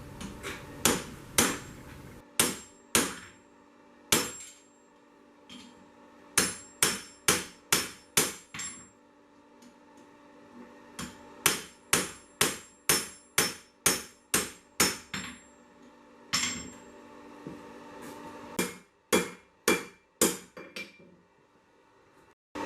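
Blacksmith's hammer striking 1085 carbon steel on an anvil, in runs of sharp blows about two a second with short pauses between runs, each blow leaving a faint metallic ring.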